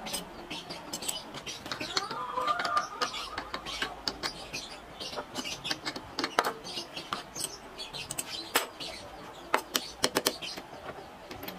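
Steel open-end wrenches clinking against each other and against the spindle and collet nut of a trim router as they are fitted on and worked: an irregular run of sharp metallic clicks.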